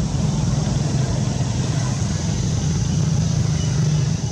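A steady low engine hum, unchanging, with a faint hiss above it.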